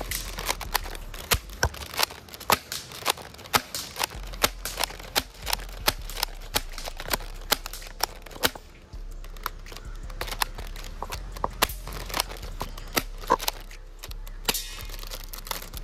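Double Eagle M56B spring-powered tri-shot airsoft shotgun being slam-fired: the pump is racked back and forth over and over, each stroke a sharp plastic clack and snap of the spring shot, several a second, with a brief lull near the end.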